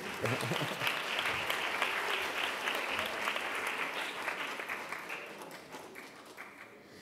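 Audience applauding, thinning out and dying away over the last couple of seconds.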